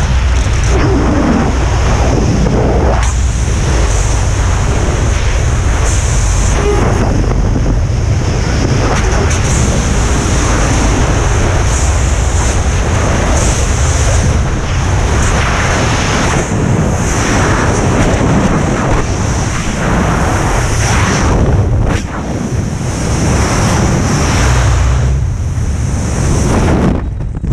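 Loud, steady wind rushing over a body-mounted camera's microphone in skydiving freefall.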